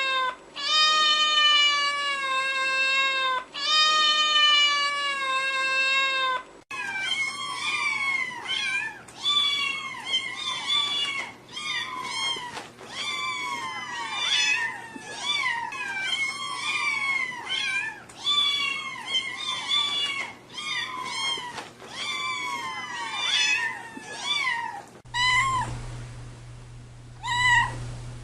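Cats meowing. It opens with a few long, drawn-out meows, then switches to a quick, dense run of short meows, several a second. Near the end come a few scattered meows over a low steady hum.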